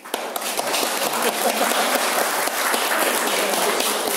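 Audience applauding, many hands clapping at once; it breaks out suddenly and keeps up steadily.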